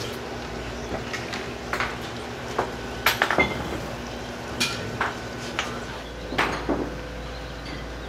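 Irregular sharp metallic clanks and clinks of scuba tanks and dive gear knocking together on a boat deck, a few of them ringing briefly.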